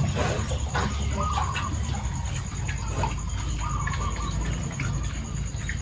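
Two short animal calls on the farm, one about a second in and one near the end, over scattered clicks and a low steady hum.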